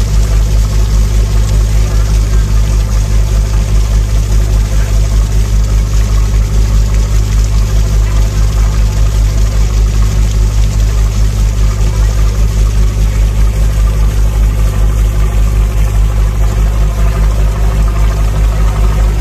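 A ferry boat's engine running steadily under way: a deep, even hum with a rapid regular throb that does not change.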